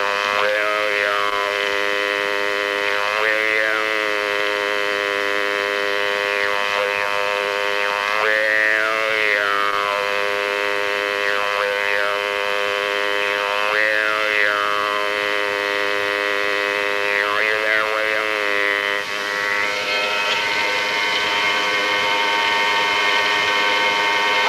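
Spiricom Mark IV tone mixture: a loud, steady drone of many held tones. A buzzing, robotic voice formed out of the drone drawls "William" several times, the tones bending with each call.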